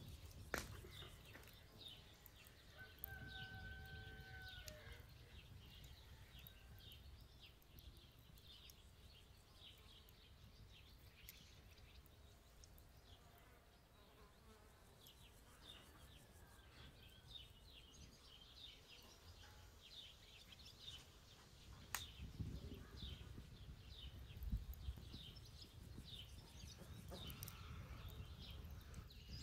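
Near silence with faint outdoor ambience: small birds chirping on and off, one held call or buzz about three seconds in, and a couple of sharp clicks.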